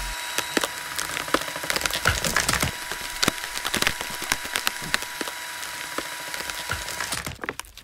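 A Klimas carpentry screw with a milling tip being driven into a timber board: dense crackling and splintering of wood fibres as the thread bores in, over a steady high whine that rises in at the start and stops near the end.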